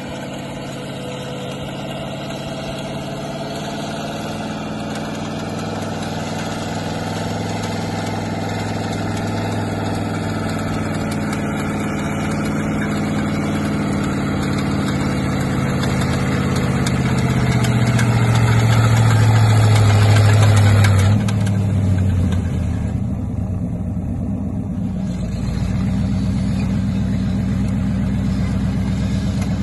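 Linn tractor's engine running as it hauls the caboose sleighs, growing steadily louder as it draws near. About twenty seconds in its pitch drops and it suddenly goes quieter, then runs on steadily close by.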